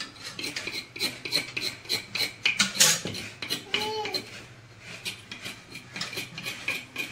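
Coconut meat being scraped out of a half shell with a hand scraper: a run of short, rasping strokes, about three a second.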